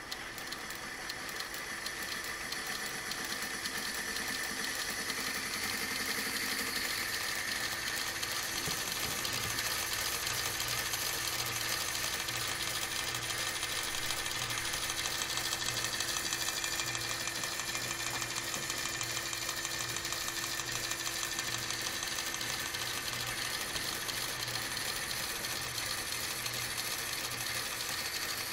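Edison Class M electric phonograph's motor, governor and belt drive running on 2.5 volts: a steady mechanical whir with a fast, even rattle. It gets louder over the first few seconds.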